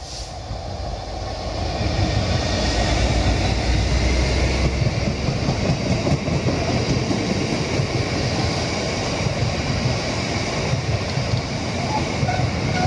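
A diesel-hauled freight train passing close by: the noise builds quickly as it arrives, with a heavy low engine rumble over the first few seconds, then a steady rush of wagons rolling past on the rails.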